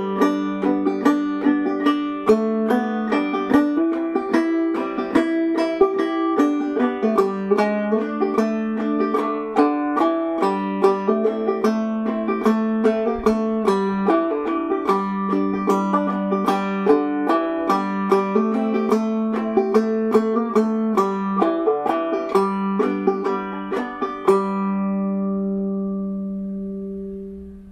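Five-string banjo played clawhammer style in standard G tuning (gDGBD), a brisk run of plucked notes and brushed strums in an old-time fiddle tune in G. Near the end it stops on a final chord that rings on and fades.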